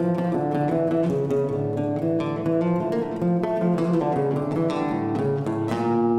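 Live Latin-Indian fusion music led by acoustic guitar, a steady run of quick plucked notes and strums over a low sustained line.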